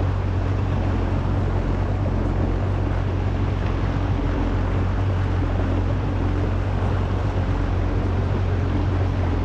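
Kawasaki SX-R 1500 stand-up jet ski's four-cylinder four-stroke engine running steadily while cruising, with water rushing along the hull and wind buffeting the microphone.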